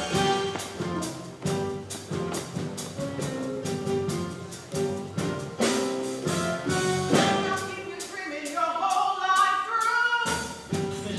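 Orchestral show music with a steady beat plays for the stage number. Near the end a run of higher notes climbs, then breaks off briefly about ten seconds in.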